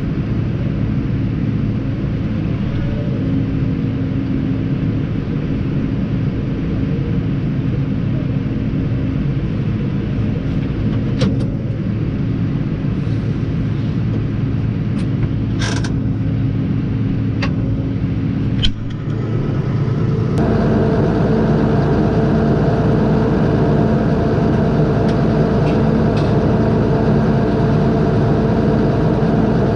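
Tractor engine running steadily, heard from inside the cab, with a few sharp clicks in the middle. About twenty seconds in, the engine sound shifts and grows louder and fuller, and it keeps running at that level.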